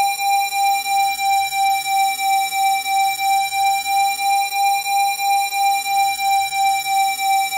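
A steady electronic tone at 787 Hz, played as a Rife frequency, with fainter overtones above it. Its loudness swells and dips evenly about three times a second.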